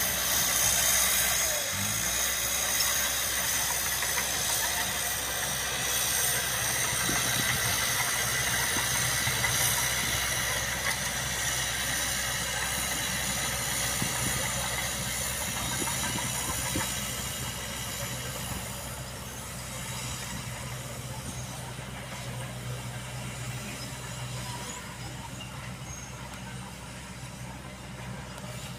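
Bulldozer diesel engine running steadily with a high hiss and whine above it, fading gradually over the second half.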